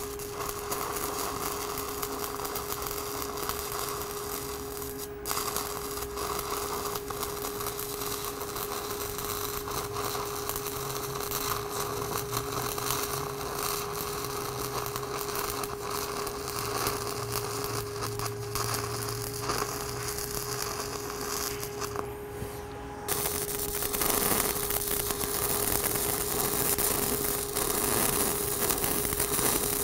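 Stick-welding arc from a 6010 electrode crackling and hissing steadily through a root pass on an open-root plate joint, with a steady hum underneath. Near the end it turns louder.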